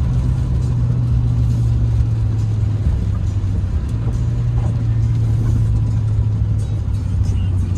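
Truck driving on the road, heard from inside the cab: a steady low engine and road drone.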